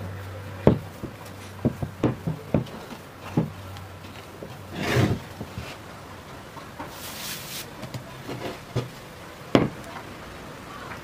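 Sticky yeast dough being squeezed and slapped by hand in a wooden bowl: a quick run of wet clicks and slaps, then a longer scraping rush about five seconds in. After a brief high hiss, the dough gives a few pats and one sharp thump near the end as it is worked on a floured wooden table.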